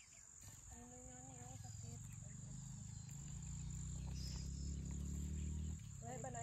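Insects calling steadily as a thin, high, unbroken drone over grassland. Underneath, a low rumble builds through the middle and cuts off suddenly near the end.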